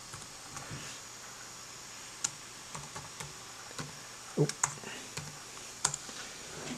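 Typing on a Lenovo Yoga 510 laptop's keyboard: scattered, irregular key clicks, with a few louder keystrokes in the second half.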